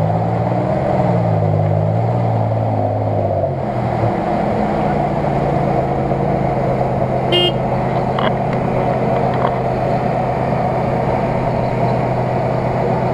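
Off-road 4x4's engine revving up and down for the first few seconds, then running at a steady speed. A short high toot sounds about seven seconds in over the outdoor background noise.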